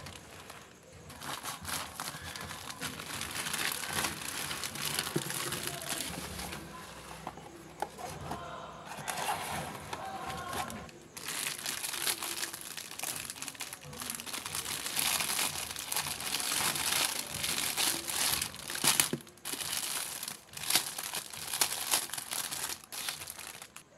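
Plastic packaging crinkling and rustling as hands open a plastic mailer bag and peel clear plastic film off a small lamp, in long stretches of crinkling broken by a few short pauses.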